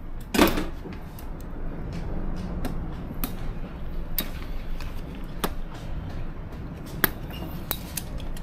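Handling noises from a parcel being measured at a post office counter: a thump about half a second in, then scattered light clicks and taps over a low steady hum.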